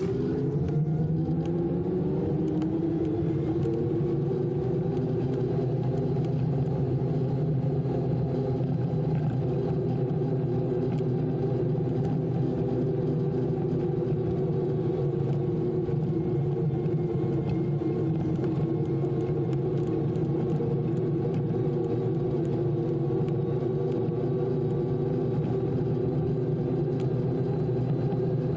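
An electric bike with a TOSEVEN DM01 mid-drive motor riding on a paved path. It makes a steady droning hum of several tones that rises in pitch over the first couple of seconds as the bike picks up speed, then holds steady.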